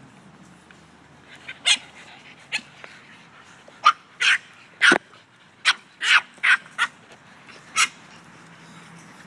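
Puppies yapping: about ten short, sharp, high barks in an uneven series, starting about a second and a half in and stopping shortly before the end.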